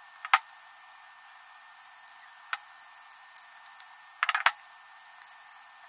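Metal hand tools clicking against a brass valve fitting and PVC bushing as tongue-and-groove pliers and an adjustable wrench are set on the joint to tighten it. There is a sharp click just after the start, another about two and a half seconds in, and a quick run of clicks a little past four seconds.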